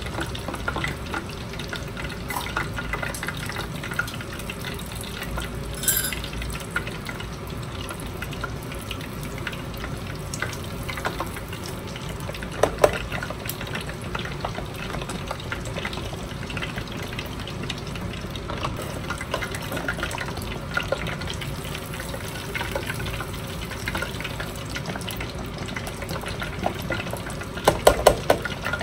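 Breaded pork cutlet deep-frying in hot oil in an electric deep fryer: a steady bubbling crackle full of small pops. Near the end come a few louder metal clinks as the wire fry basket is handled.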